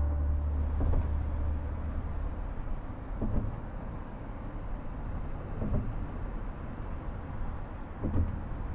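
Road and tyre noise inside a moving car, a steady low rumble, with a soft thump about every two and a half seconds.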